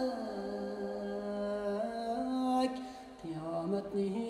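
Music of an Uyghur song between sung lines: a slow melody of long held notes that step to a new pitch a few times, dipping briefly before the melody picks up again near the end.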